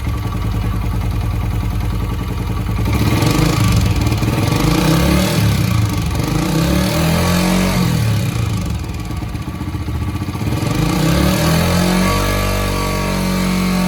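Honda CG125 single-cylinder four-stroke engine running cold with a lot of mechanical noise from inside the engine. It is revved up and let fall back twice. The mechanic traces the noise to a loose, wobbling pin at the flywheel magnet under the magnet cover.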